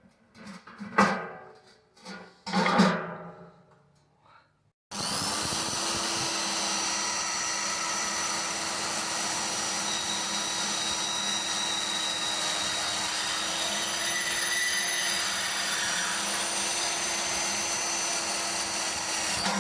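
A few knocks, then an electric power tool spins up about five seconds in and runs steadily at an even pitch until it cuts off at the end.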